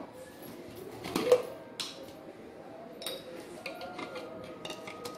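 A few light clinks and knocks of steel kitchenware being handled, the loudest about a second in.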